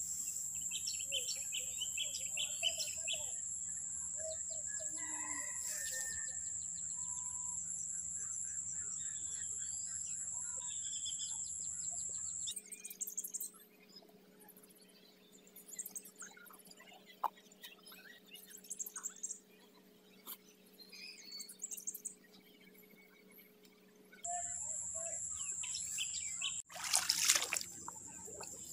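Birds chirping and calling over a steady high-pitched drone, with a quieter stretch in the middle. Near the end, water splashing loudly as feet wade through the shallow, flooded rice paddy.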